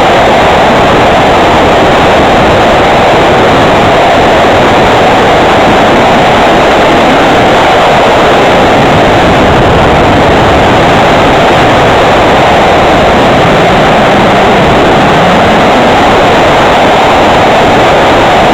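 Loud, steady rush of airflow and propeller noise from a flying home-made radio-controlled model plane, heard through a camera mounted on its wing.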